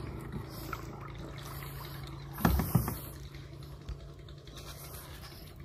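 A steady low motor hum over faint water sounds, with a brief louder sound about two and a half seconds in.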